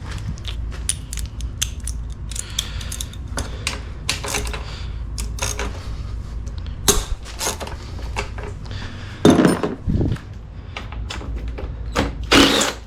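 Hand tools working on motorcycle subframe hardware: irregular metallic clicks, clinks and knocks as a tight bolt is worked loose, with a few louder knocks, over a steady low hum.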